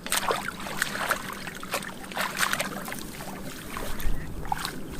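Irregular splashing and sloshing in shallow muddy water, many short splashes in quick succession, as fish are groped for by hand.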